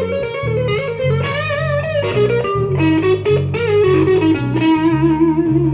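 Live blues-rock: an electric guitar plays a lead line of bent, wavering notes over a repeating electric bass line.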